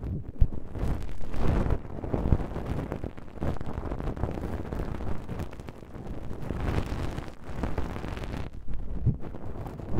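An ear-cleaning stick rubbing and scraping against the ear of an ASMR microphone, a close, muffled rumbling and swishing that swells and fades in irregular strokes.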